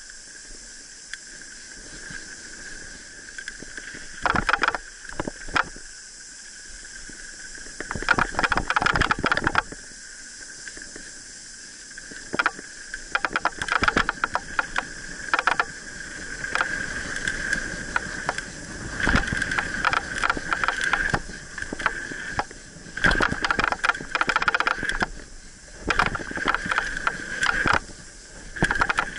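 Mountain bike rolling fast down a dirt forest trail, heard from a camera on the handlebars: a steady whirring hiss from the moving bike, broken by repeated bursts of rattling and clatter as the bike jolts over bumps and roots.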